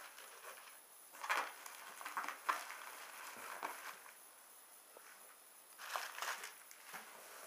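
Plastic bubble wrap crinkling and rustling in several short bursts as it is handled and pulled back from a packed box.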